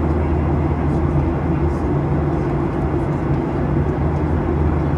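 Airliner cabin noise in flight: a steady drone of engines and rushing air, with a low hum underneath.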